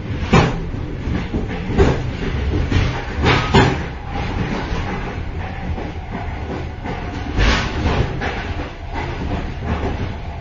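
Inside a moving train's vestibule: a steady low running rumble with irregular metallic clanks and rattles from the coupling and gangway, the loudest knocks about half a second, two, three and a half and seven and a half seconds in.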